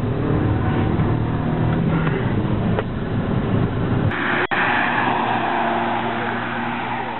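Audi A3 1.4 TFSI's turbocharged four-cylinder engine and road rumble heard from inside the cabin while driving. About four seconds in, it cuts to a car heard from the roadside as it drives past, mostly tyre and road noise with a lighter engine note, fading as it moves away.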